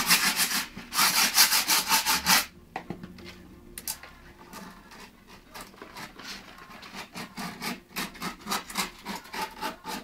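A file rasping back and forth over the griptape along the edge of a skateboard deck, quick strokes about five a second, which scores the outline of the deck. About two and a half seconds in it drops to much softer, irregular scraping strokes.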